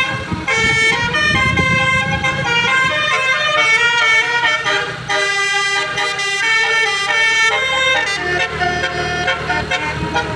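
Multi-tone Basuri 'telolet' horn on a vehicle, several horn trumpets sounding together and playing a tune, the notes changing in quick steps.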